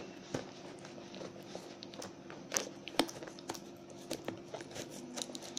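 Hands opening a small tape-sealed box: irregular clicks, taps and crinkles as the box and its tape are picked at and pulled open.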